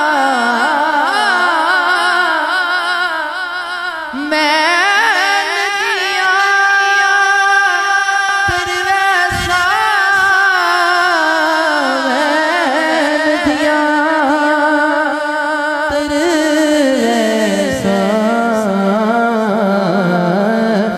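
A male naat reciter singing into a microphone, with long wavering melismatic notes. A new phrase starts about four seconds in, and from about six to twelve seconds he holds long notes.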